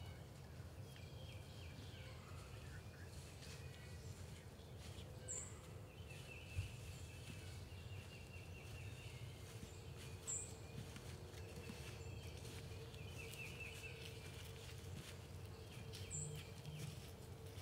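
Faint spring woodland ambience: songbirds singing short repeated phrases every few seconds, with a brief very high note about every five seconds, over a low steady rumble.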